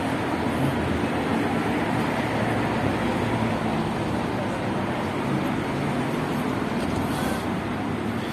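City street traffic: cars driving past, a steady rush of engine and tyre noise.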